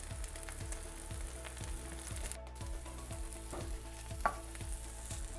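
Steady sizzle of cheese and a tortilla frying on a hot comal, with one soft tap about four seconds in.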